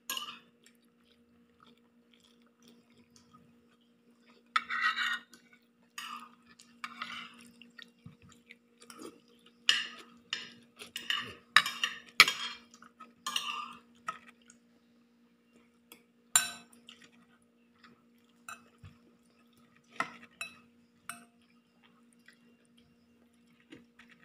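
Metal spoon scraping and clinking against a stainless steel pot and dishes in scattered bursts, with one sharp clink later on, over a steady low hum.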